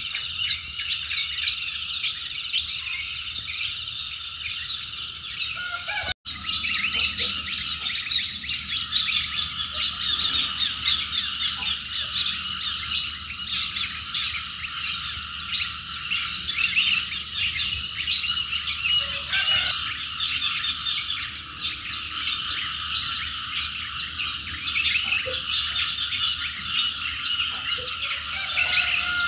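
Dense, steady dawn chorus of tropical forest wildlife: many overlapping rapid chirps and trills from frogs, insects and birds calling together. The sound cuts out for an instant about six seconds in.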